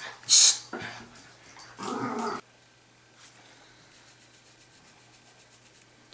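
A short sharp hiss, then a dog growls briefly about two seconds in; the sound then cuts to quiet room tone.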